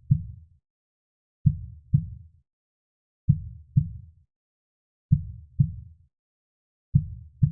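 Heartbeat sound with a slow, even rhythm of paired lub-dub thumps. A double beat repeats about every 1.8 seconds, with silence between beats.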